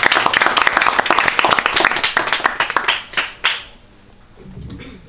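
A small audience applauding: many hands clapping at once, thinning out about three seconds in with a last lone clap soon after.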